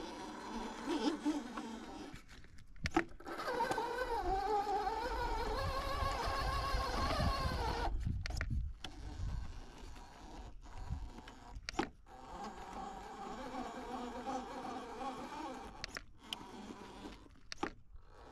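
Electric radio-controlled car's motor whining, its pitch wandering up and down with the throttle, cut by several brief dropouts.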